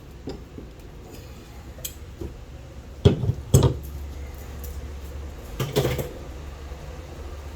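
Metal clinking and knocking from hand tools and parts on a sterndrive gimbal housing: a few light taps, then two loud knocks about three seconds in and another cluster of knocks near six seconds.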